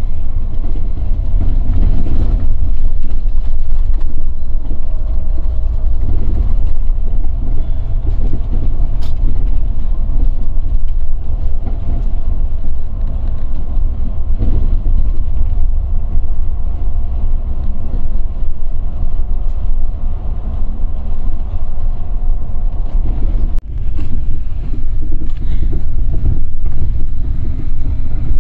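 Scania coach on the move, heard from inside the cabin: a loud, steady low rumble of engine and road noise with a faint steady whine above it, briefly dropping about three-quarters of the way through.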